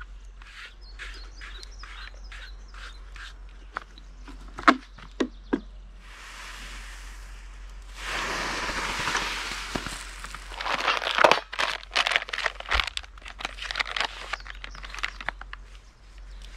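Sharp clicks and knocks of objects being handled, with a few seconds of even rushing noise around the middle, followed by a quick run of clatter.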